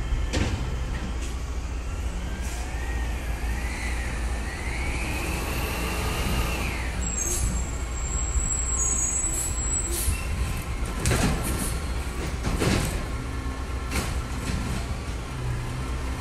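Peterbilt 520 garbage truck with a Bridgeport Ranger automated side-loader, its engine running steadily while the arm works. Over a few seconds a hydraulic whine rises and then falls. Two sharp knocks come about eleven and twelve and a half seconds in.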